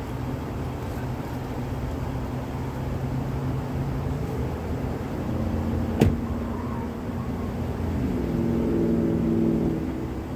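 Double-stack container freight train rolling past at a distance, a steady low rumble, with a pitched engine hum that steps up twice and one sharp bang about six seconds in.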